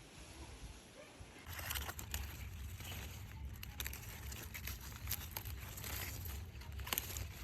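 Rustling and crackling of plant material being handled, starting about a second and a half in, with many small irregular crackles over a low steady rumble.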